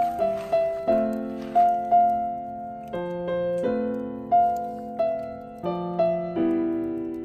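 Background music played on piano: struck chords with a melody on top, each note starting sharply and fading.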